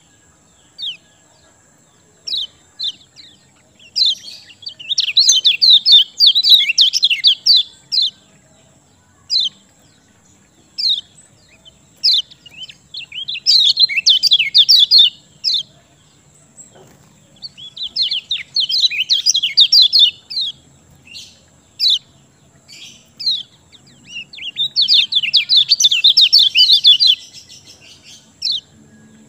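Kecial kuning white-eye singing in full song: single sharp, high downslurred chirps, broken by four bursts of fast twittering of about three seconds each. A faint steady high tone runs underneath.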